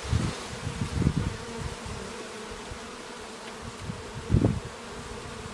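Honey bees buzzing in flight around hive entrances. Their buzzing swells and fades irregularly, with a louder buzz briefly about four seconds in.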